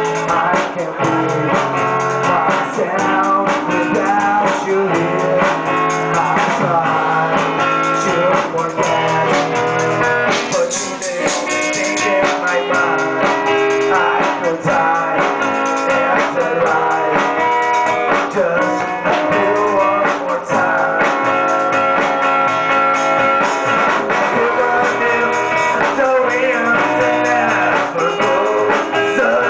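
Amateur band playing a song live: strummed acoustic guitar and electric guitar over a drum kit, picked up by a single camera microphone.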